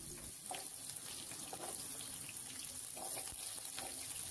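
Chopped onion, scallion and green pepper frying in a little oil in a frying pan: a soft, steady sizzle with a few faint pops.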